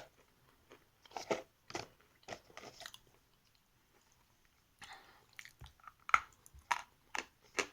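Hard edible chalk (Sever variety) being bitten and chewed: crisp crunches, called hard and "ringing" (звонкий). A run of crunches comes in the first three seconds, then a pause, then more crunches over the last three seconds.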